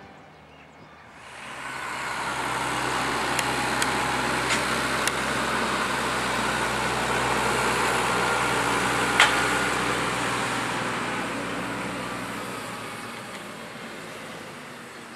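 Fendt 820 Vario tractor running steadily as it drives past pulling a slurry tanker with an injector: it grows louder from about a second in, is loudest around the middle, then fades as it moves away. A few sharp clanks, the loudest a little past the middle.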